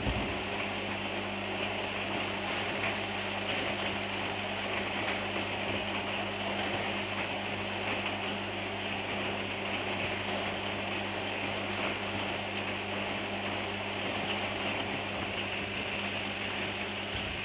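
Electric pump running with a steady low hum over a constant rush of moving water.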